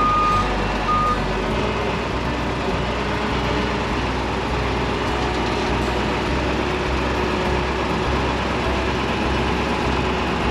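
Heavy farm machinery engine running steadily, with an electronic beeper sounding two short beeps in the first second or so.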